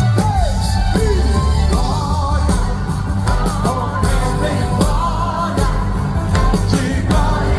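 Live band playing gospel pop-rock with a strong bass line and drum hits, with a voice singing or calling out over it.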